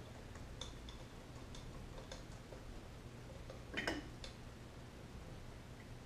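Light, scattered metallic clicks and taps from hand tools and carburetor parts as the carburetor of a 1972 Honda CT90 is worked loose by hand. There is one louder clatter about four seconds in.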